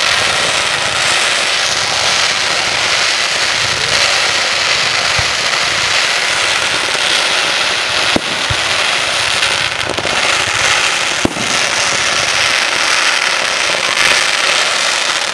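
Aerial fireworks going off in a continuous dense crackle, with a few sharper single bangs standing out above it.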